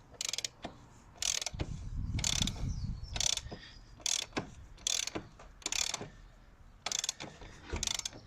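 Hand ratchet wrench clicking in short strokes, about one a second, while undoing the front wheel fittings of a motorcycle. A low rumble of metal parts shifting comes about two to three seconds in.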